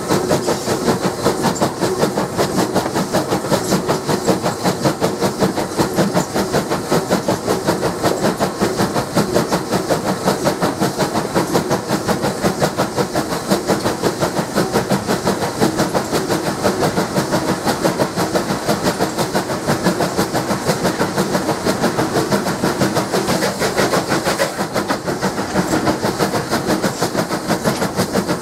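Bulleid Battle of Britain class Pacific 34053 Sir Keith Park's three-cylinder exhaust chuffing under way, a fast, steady beat heard right beside the smokebox and chimney.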